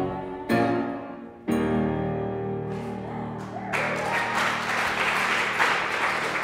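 Piano chords struck twice, about half a second and a second and a half in, ringing out and fading. From about four seconds in, a small group applauding.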